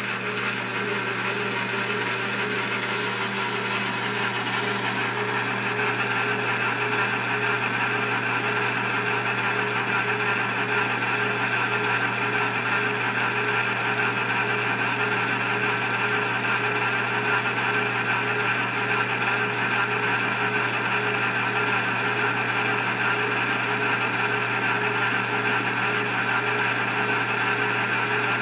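Atlas horizontal mill running with its power feed engaged, while the Taig-motor vertical milling head spins an end mill through a light pass of about 0.002 in on a piece of scrap. It makes a steady mechanical whir with several constant pitches, a little louder from about five seconds in.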